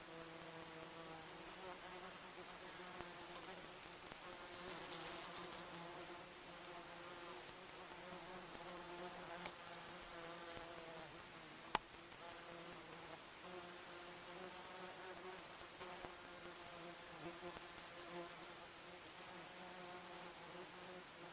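Wasps buzzing in flight, a steady low hum that wavers slightly in pitch, with one sharp click just past halfway.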